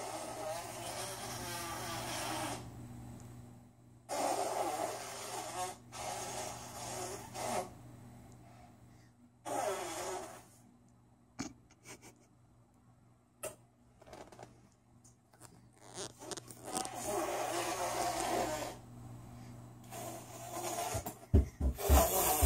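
A toddler making mouth noises, long breathy blowing sounds into her hands cupped over her mouth. Each lasts a second or a few seconds, with pauses and a few short clicks between. Near the end come a few heavy thumps of small feet running in rubber boots.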